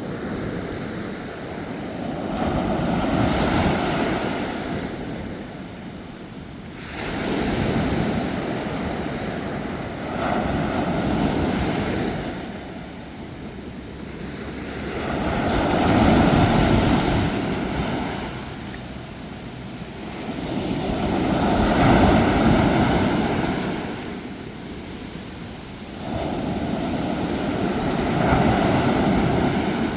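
Ocean waves breaking and washing back, swelling and fading about six times, every four to six seconds. Some waves come in with a sudden rush.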